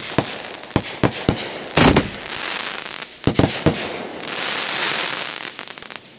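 Aerial fireworks bursting overhead: a rapid series of sharp bangs, the heaviest a little under two seconds in and another cluster past the three-second mark, with a crackling hiss from the white spark bursts between them. It dies away near the end.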